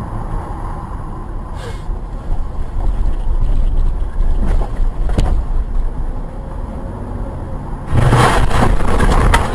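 Steady road and engine noise of a car, then about eight seconds in a loud crunching crash lasting over a second: a vehicle collision.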